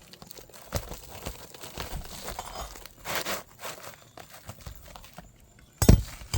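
Roofing tools working nails loose under asphalt shingles: scraping and small knocks with crinkling and tearing of the shingle, then two loud knocks near the end.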